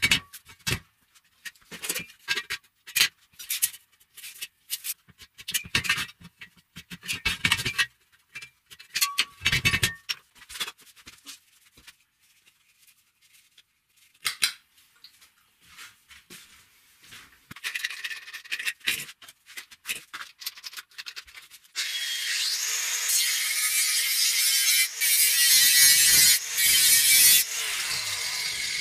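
Metalworking sounds on steel tube: scattered light knocks and clicks, some ringing briefly, for about the first ten seconds, then from about three-quarters of the way through a continuous loud scraping noise of metal being cut or worked.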